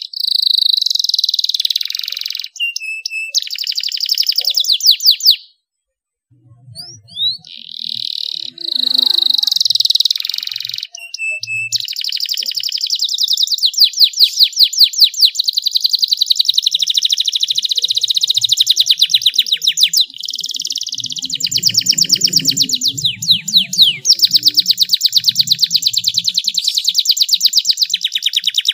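Canary singing long, fast rolling trills of high, clear notes. It breaks off briefly about five seconds in, then trills almost without a pause through the rest.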